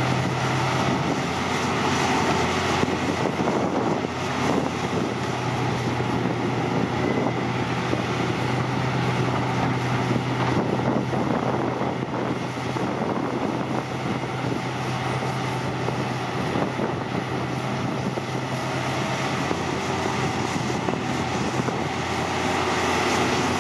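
Hitachi Zaxis 520 hydraulic excavator's diesel engine running under load, a steady heavy drone with a constant low hum, as the machine digs and swings to load a dump truck.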